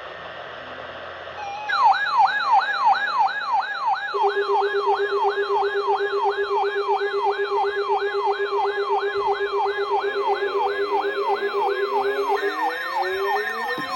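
Electronic siren tone in a fast yelp, sweeping up and down about two and a half times a second, starting sharply after a second or two of radio hiss. A steady low hum joins about four seconds in, and repeated rising pitch glides are layered over it near the end.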